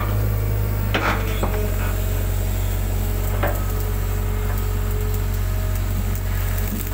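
Hitachi hydraulic excavator running steadily while digging, heard from the cab: a constant low engine hum with a few short knocks and scrapes from the bucket and arm, the sharpest about a second in and again about three and a half seconds in.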